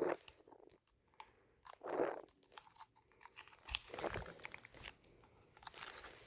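Duct tape being handled and peeled: faint scattered crackles with a few short rustling, ripping noises, the clearest about two seconds in.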